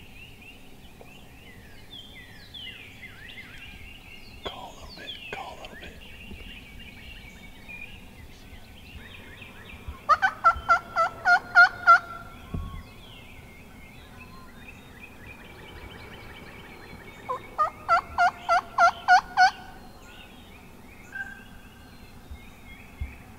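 A wild turkey gobbler gobbling loudly twice, about seven seconds apart. Each gobble is a rapid rattling run of about eight notes lasting roughly two seconds. Songbirds chirp faintly in the background, mostly in the first few seconds.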